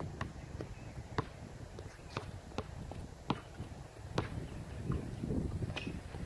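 Basketball bouncing on an outdoor hard court: a series of sharp, irregular smacks about half a second to a second and a half apart, mixed with the player's footsteps.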